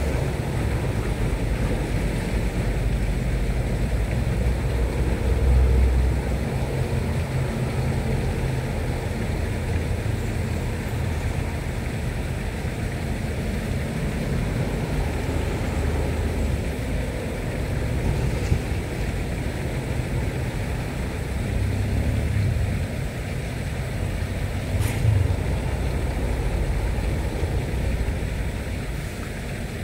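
A small boat's motor running steadily under a low rumble of wind and water noise, with two brief knocks, one past the middle and one near the end.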